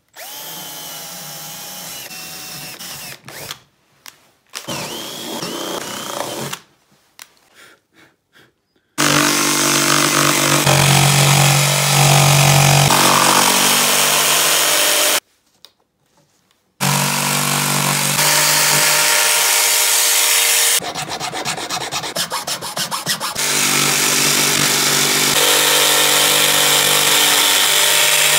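A power drill runs for about three seconds, boring a starter hole through a chipboard panel. A few seconds later a jigsaw starts cutting a curved heart shape out of the board. It runs loud and steady, stops for a second or so about halfway through, then starts again and keeps cutting.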